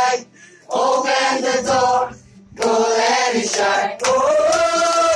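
A crowd of young people singing together without accompaniment, in three phrases with short breaks between them. The last phrase, beginning about four seconds in, is held.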